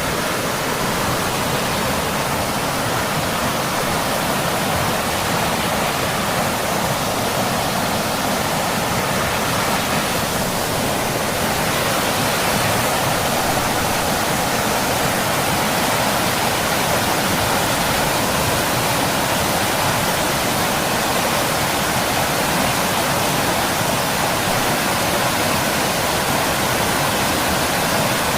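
Water of a small stream rushing and splashing steadily over rocks.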